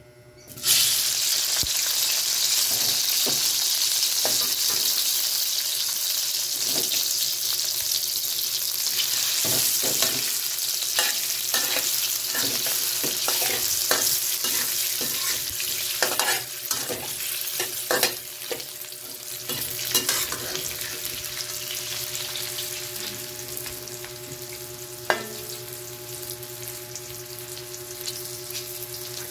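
Squid balls hit a hot wok and sizzle loudly from about half a second in, while a metal spatula scrapes and clacks against the wok as they are stirred. The sizzle slowly dies down toward the end, with one sharp tap of the spatula near the end.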